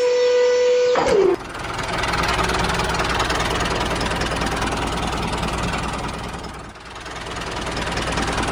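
A steady high tone about a second long slides down in pitch and stops, then a tractor engine runs steadily. The engine fades briefly about seven seconds in and comes back.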